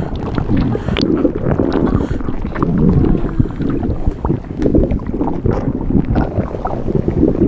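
Body-inflation sound effect: a continuous low, churning rumble, with many short clicks scattered through it.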